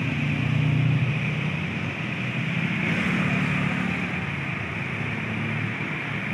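Steady low diesel engine hum from heavy vehicles, under a continuous hiss of road traffic.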